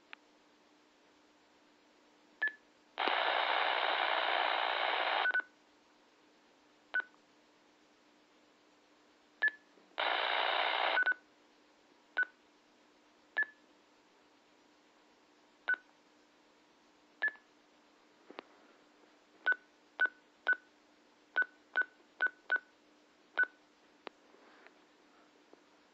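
Handheld two-way radio being operated: short electronic key beeps as its buttons are pressed, a dozen or more, coming faster near the end. Two bursts of loud static hiss, one of about two and a half seconds and one of about a second, come from the radio's open squelch.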